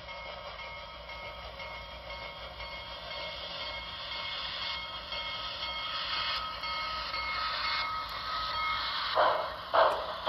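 HO-scale Broadway Limited Commodore Vanderbilt model locomotive running past, its Paragon 4 sound decoder playing steam-locomotive running sounds over a steady whine. The sound grows louder, and near the end it turns into distinct rhythmic chuffs, about two a second.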